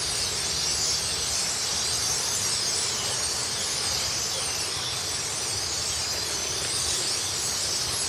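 A huge flock of blackbirds roosting in trees, a dense, unbroken chatter of many overlapping high-pitched calls.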